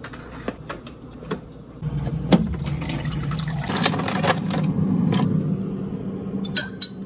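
Keurig single-serve coffee maker brewing: a few clicks as the mug goes in and the machine is started, then a steady pump hum with coffee streaming into the mug. More clicks come near the end.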